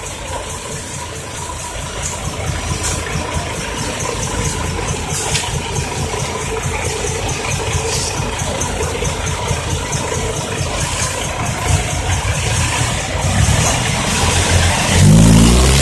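Six-wheel Isuzu dump truck's diesel engine running at low revs as the loaded truck creeps forward, gradually growing louder. Near the end it revs up as the truck pulls away.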